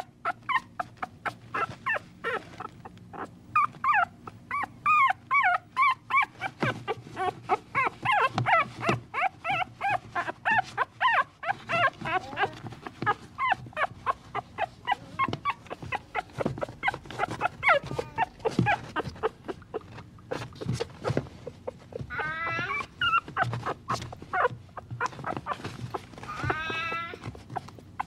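A dog yipping and whimpering: a rapid run of short, high-pitched yips, several a second, with two drawn-out whines near the end.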